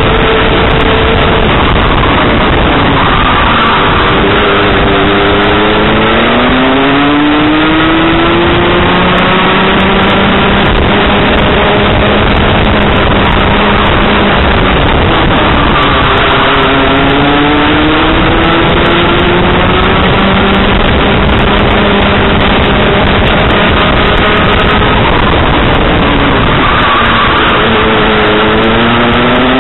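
Two-stroke Junior Rotax kart engine at racing speed, heard on board: its pitch falls as the kart slows for corners and climbs back as it accelerates out, three times over, under a steady rush of noise.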